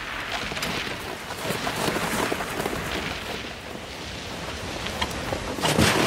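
A harnessed reindeer running through snow, heard as a steady, rushing noise of movement through the snow.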